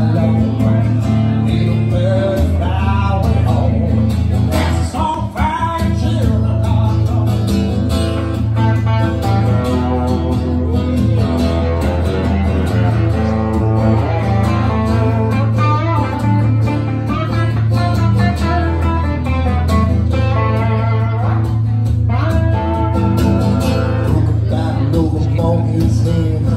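Live acoustic guitar strummed with an electric guitar playing along, and a man singing over them.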